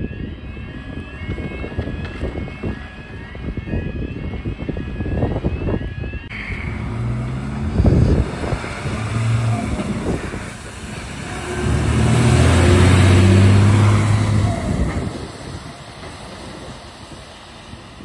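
Fire engine's diesel engine running, with a repeating rising electronic warning tone typical of a reversing alarm; about six seconds in this gives way to a diesel fire-service truck driving past on a wet road, its engine and tyre hiss growing loudest at about two-thirds of the way through, then fading.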